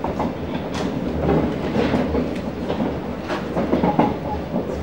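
Singapore MRT train running at speed, heard from inside the car: a steady low rumble of wheels on rail with irregular sharp clicks and rattles.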